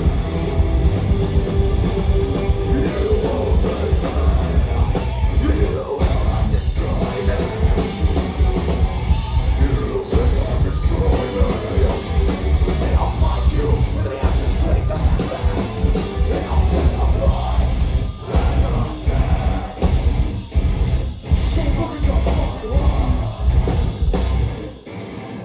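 A metalcore band playing live at full volume: heavily distorted guitars, bass and pounding drums under a screamed vocal. The music stops abruptly near the end.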